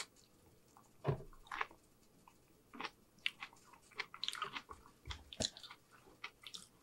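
A person chewing a mouthful of food close to the microphone: irregular wet smacks and clicks of the mouth, with short quiet pauses between chews in the first few seconds.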